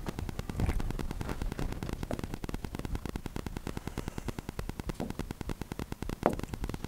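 Steady, rapid crackle of static. There is a faint thud about half a second in and another near the end.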